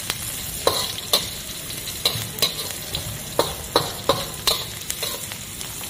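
Metal spatula scraping and clacking against a wok, about twice a second and unevenly, over a steady sizzle of sliced shallots, garlic and dried anchovies frying in hot oil. They are being stir-fried until lightly golden.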